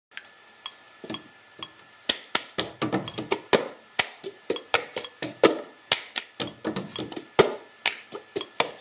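Irregular taps and knocks of metal lids and small cans being set down on a poster board, a few scattered at first, then about two to four a second from about two seconds in.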